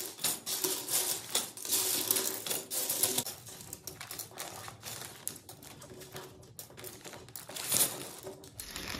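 Small plastic LEGO bricks clicking and clattering against each other as handfuls are swept into a plastic bag, busiest over the first three seconds and sparser after. The plastic bag crinkles briefly near the end as it is handled.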